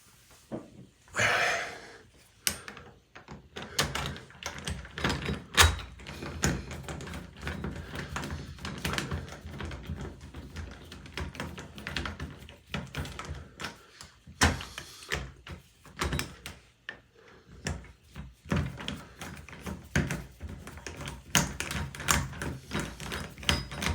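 Metal doorknob hardware clicking and knocking against a wooden door as a passage knob is fitted and its screws are turned in with a screwdriver: a run of irregular clicks and taps, a sharper knock about five seconds in, and a couple of brief scrapes.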